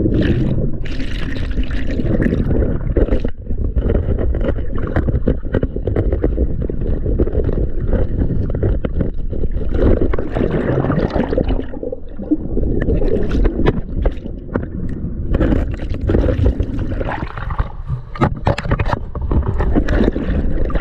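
Turbulent water sloshing and gurgling, dense with small clicks and knocks, with brief lulls every few seconds.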